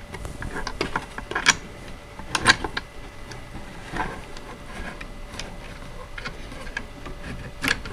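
Light, irregular knocks and clicks of a wooden doll high chair's tray arms being handled and worked onto the chair's wooden sides.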